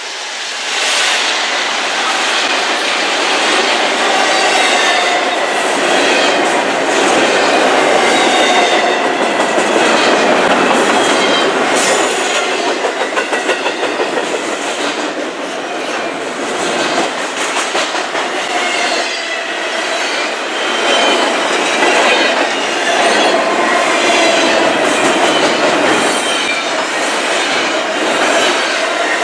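Double-stack container cars of a freight train rolling past close by: a steady rolling rumble with a quick clickety-clack of wheels over the rails and thin, wavering wheel squeals. It swells about a second in.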